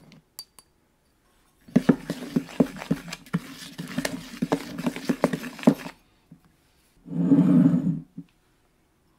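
Dry cake mix of flour, cocoa and baking powder being stirred in a plastic mixing bowl: about four seconds of gritty scraping with frequent knocks of the utensil against the bowl. Near the end, a small glass bowl is set down and slid on the wooden tabletop, a scrape of about a second.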